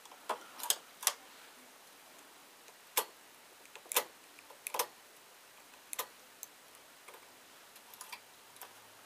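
Irregular sharp clicks and ticks, roughly one every second or so with short bunches, from metal knitting-machine needles and a hand latch tool as stitches are worked by hand on the needle bed.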